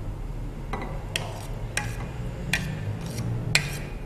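A metal utensil clinking and scraping against a saucepan as custard is taken out of it: about six sharp clinks, unevenly spaced, the loudest near the end.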